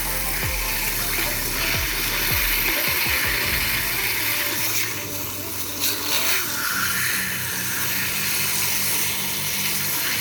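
Water spraying and running steadily over a toy car as it is washed, a continuous hiss that dips and surges briefly about halfway through.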